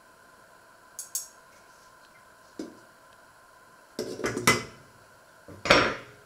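Cookware clatter: light clinks of a metal utensil on a plate about a second in, then a glass lid set down rattling onto a stainless steel saucepan about four seconds in, and metal tongs clattering onto a wooden cutting board near the end.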